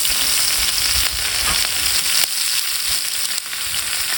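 Lamb ribs sizzling in their fat on a cast-iron cauldron-lid griddle (sotttukkeong): a steady frying hiss with small crackles, the meat cooked through.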